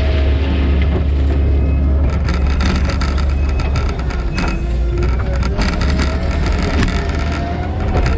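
Kubota SVL 90-2 compact track loader's diesel engine running steadily under work, with a hydraulic whine that slowly rises and falls in pitch. From about two seconds in, a steady run of clicks and clatter sounds over the engine.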